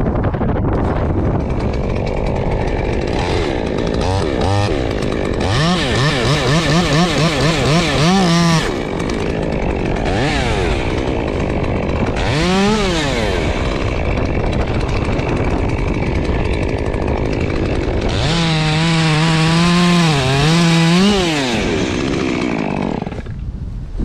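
Muffler-modified Stihl top-handle chainsaw revving: a quick string of throttle blips, one more short rev, then held at high revs for about three seconds before dropping back. Wind rushes on the microphone throughout.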